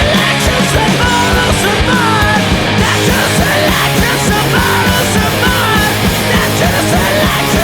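Loud punk rock music without vocals: a dense band sound with frequent drum hits and wavering high notes.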